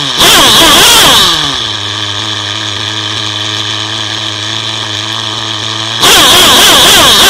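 Small two-stroke engine of a radio-controlled car being revved in quick blips that fall back in pitch, then settling about a second and a half in to a steady idle. About six seconds in it is suddenly revved hard again, its pitch rising and falling over and over.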